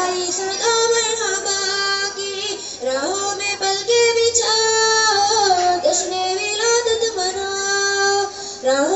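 A single high-pitched voice singing a slow devotional naat melody, holding long notes and sliding smoothly between pitches, with no instruments heard and a faint steady electrical hum underneath.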